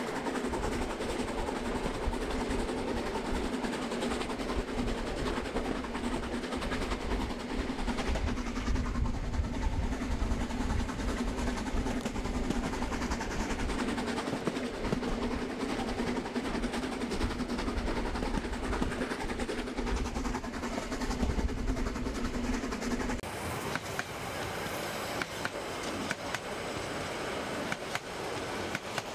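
H0-scale model freight train running on the layout track: a steady hum over a rolling rumble. It cuts off abruptly about three-quarters of the way through, leaving quieter running with scattered light clicks.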